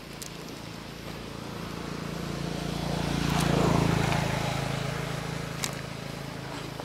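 A motor vehicle driving past: a low engine hum that swells to its loudest about halfway through, then fades. Two or three faint clicks are heard along with it.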